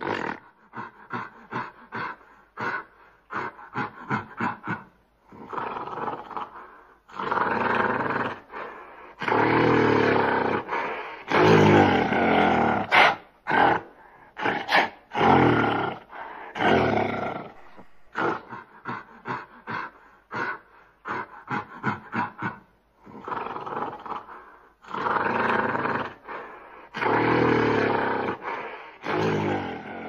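Gorilla vocalising: runs of short, rough grunts alternate with loud, drawn-out roars of a few seconds each.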